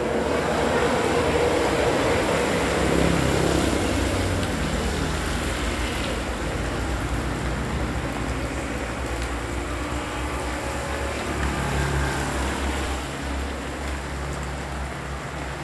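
Steady wash of rain and flowing floodwater with a low rumble underneath, easing off slightly toward the end.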